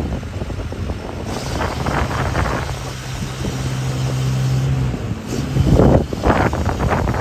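Diesel engines of a convoy of loaded 33-tonne lorries running as they move slowly across a suspension bridge: a steady low drone through the middle, with louder rushing swells, the strongest about six seconds in.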